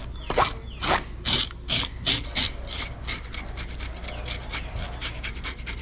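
Fish scaler scraping the scales off a large flounder in repeated rasping strokes, spaced out at first and then quick and continuous from about halfway through.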